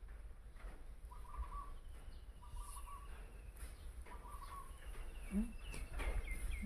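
Birds calling: a short warbling call repeated three times about a second and a half apart, and a thin high trill. A few short low calls come near the end, over a steady low hum.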